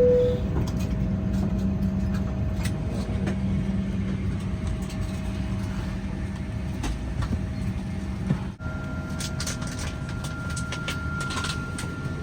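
Steady cabin noise of a Boeing 737-800 after landing: a low rumble with a hum and scattered clicks. About two-thirds of the way through it cuts off abruptly to a similar steady noise carrying a thin high whine.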